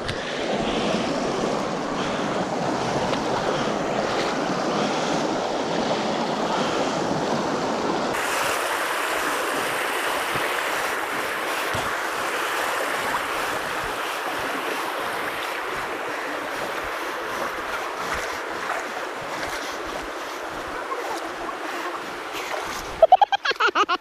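Shallow creek water rushing over rocks, heard close up, a steady hiss of flowing water. About eight seconds in the sound turns higher and hissier.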